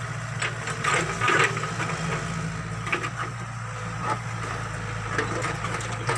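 Backhoe engine running steadily, with irregular knocks and clunks from the digging work, loudest in a cluster about a second in.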